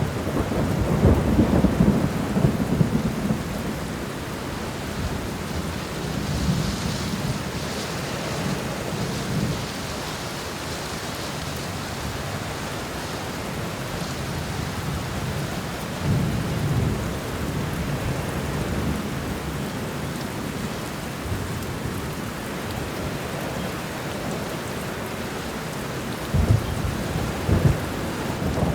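Steady rain falling against an apartment window, with low rolls of thunder swelling and fading several times, loudest near the start and near the end.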